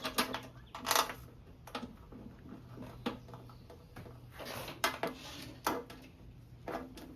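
Small metallic clinks and rattles of oil-pan bolts and washers being handled and fitted, scattered about once a second, the loudest about a second in, over a steady low hum.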